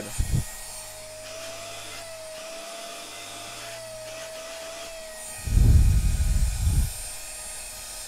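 CAFELE cordless handheld car vacuum running on its high setting: a steady, slightly wavering high motor whine over an airy hiss. The whine stops about five seconds in, and a loud low rumble follows for about a second and a half.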